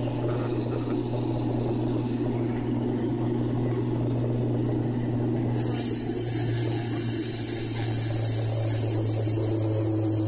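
Airliner cabin noise while climbing after takeoff: the engines' steady drone with a strong low hum and rushing air. The higher hiss shifts in character about halfway through.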